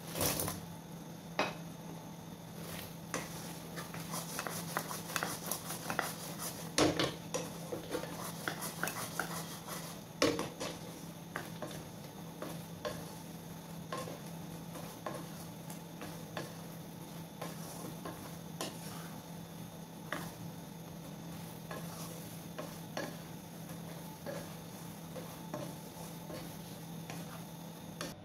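A slotted spatula knocking and scraping in a nonstick wok as fried chicken wings are dropped in from a plate and tossed in a sticky honey garlic butter sauce. The clatter is busiest in the first ten seconds or so and then eases to occasional taps, over a steady low hum.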